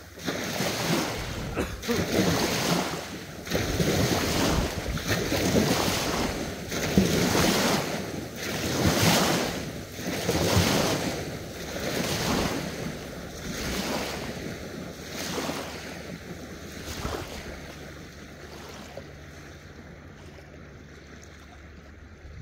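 Rhythmic splashing of a person moving through sea water, about one splash every three-quarters of a second, with surf and a little wind behind it. The splashes grow weaker near the end and give way to a steadier hiss of water.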